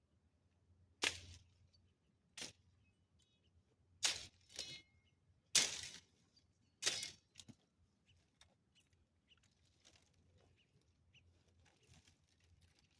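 A series of about seven sharp strikes over the first seven or eight seconds, irregularly spaced, a couple of them with a brief metallic ring, then only faint low background.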